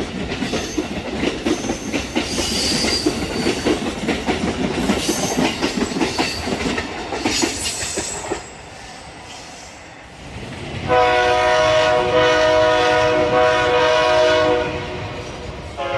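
Amtrak train passing at speed, its wheels clattering rapidly over the rails for about eight seconds. After a short lull, a locomotive's multi-note air horn sounds one long chord of about four seconds, then fades.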